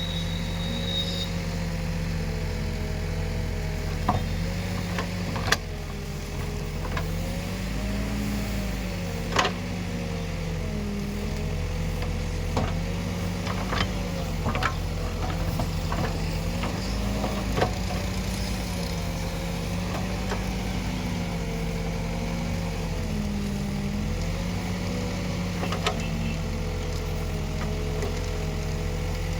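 Escorts Digmax backhoe loader's diesel engine running while working, its pitch rising and falling gently every few seconds, with a dozen sharp knocks scattered through.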